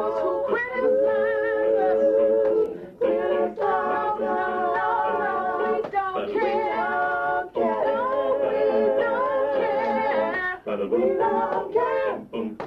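A small group of men and women singing a cappella, in held phrases of a few seconds each with short breaths between them.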